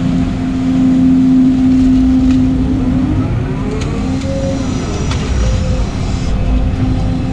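Volvo EC220 excavator's diesel engine and hydraulics, heard from inside the cab, working under load while a full bucket of mud is lifted, swung and dumped. The engine holds a steady note at first, its pitch wavers for a couple of seconds in the middle with two sharp clicks, and then it settles back to the steady note.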